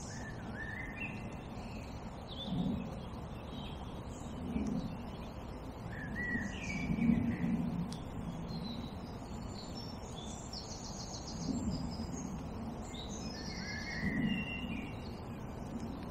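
Small birds singing in the surrounding trees, with short rising and falling whistled phrases and higher trills, over a steady low outdoor hum. A few soft low bumps come and go, the loudest about seven seconds in.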